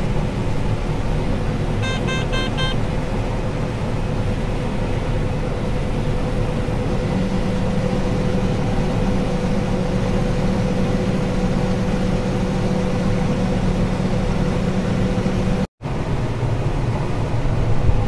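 A John Deere combine harvester running steadily, heard from inside its cab while it harvests corn. A quick run of electronic beeps from the cab sounds about two seconds in, and a deeper hum joins about seven seconds in as grain is being unloaded into a grain cart. The sound cuts out for a moment near the end.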